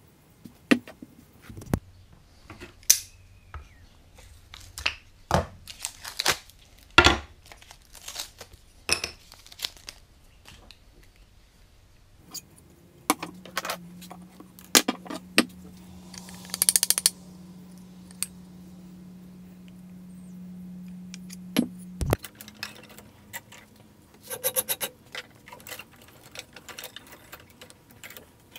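Scattered clinks and knocks of a steel tomahawk head and small tools being wiped, picked up and set down on a wooden workbench. Partway through, a low steady hum starts and then cuts off with a knock several seconds later.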